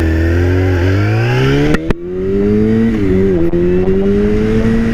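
A 2003 Yamaha R6's inline-four engine pulling away from a stop, its revs climbing through first gear. It upshifts just before two seconds in, where the pitch drops with a click, and again a little after three seconds, then keeps accelerating.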